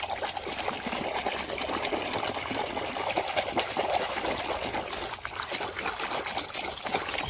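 Water trickling and splashing steadily as a muddy toy is washed clean, with many small splashes and drips.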